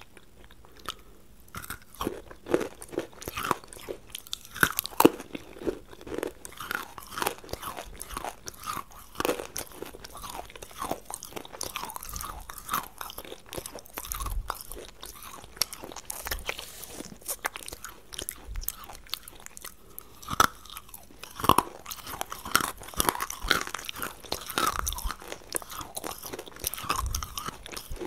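Close-miked biting and chewing of hard, chalky grey lumps: repeated sharp crunches and crackles as the pieces break in the mouth. They start about two seconds in, with a brief pause near the middle.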